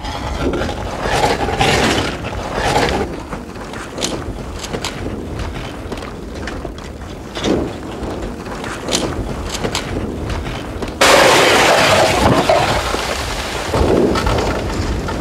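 Advancing lava flow front, its cooling crust cracking and breaking up with scattered sharp glassy cracks and clinks over a low rumbling noise. About eleven seconds in the sound cuts abruptly to a louder, steadier rushing noise.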